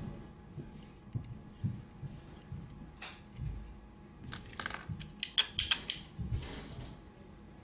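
Metal parts of a Columbia drywall angle head clicking and clinking as it is handled and reassembled by hand. A few light clicks early on, then a quick run of sharper metallic clicks about four to six seconds in.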